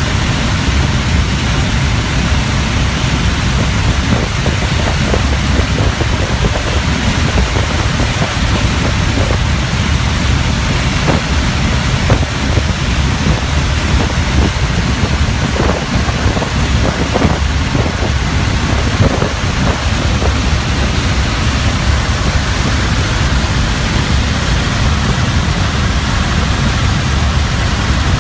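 Steady engine and propeller drone of a small propeller plane in the climb, mixed with rushing wind noise, heard from inside the cabin.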